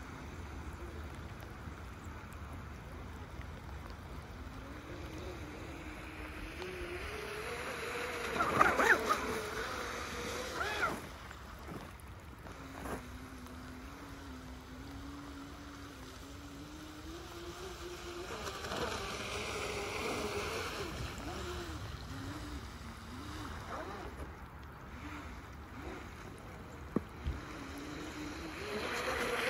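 Electric RC jet boat's brushless inrunner motor driving twin water-jet drives: a steady whine that rises and falls in pitch as the throttle changes, loudest around nine seconds in.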